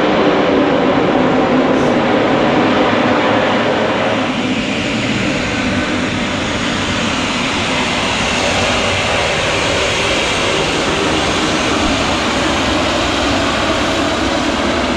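Twin-engine turboprop plane's engines and propellers running loud as it rolls up the runway after touchdown and taxis onto the apron. The roar stays steady, with a higher whine coming in about halfway through.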